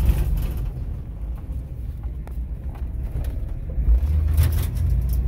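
Car running, heard from inside the cabin: a low engine and road rumble that gets louder from about four seconds in as the car pulls away through a turn.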